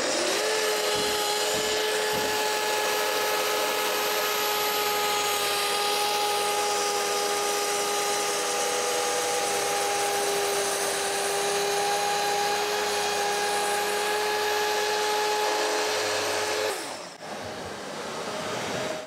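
Festool plunge-cut track saw with a fine-finish, many-toothed tungsten-carbide Freud blade, cutting all the way through solid beech along its guide rail. The motor spins up to a steady high whine with cutting noise and holds for about sixteen seconds, then winds down near the end.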